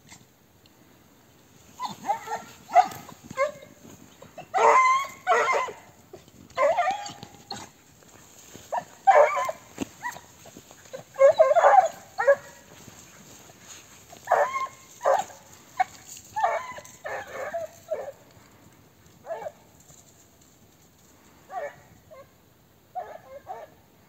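Hare-hunting hounds barking and yelping in irregular bouts of short, sharp calls, beginning about two seconds in and going on with short pauses almost to the end.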